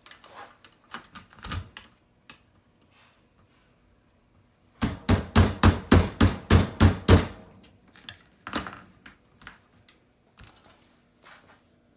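An Allen wrench tapping the rear brake's pivot shaft out of a Segway Ninebot ES2 kick scooter: a quick run of about ten sharp metal taps, about four a second, starting about five seconds in, with scattered lighter clicks of handling before and after.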